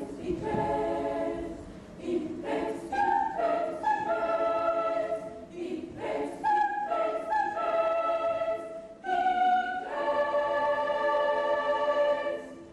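Children's choir singing in short phrases with brief breaks between them, then holding one long chord near the end.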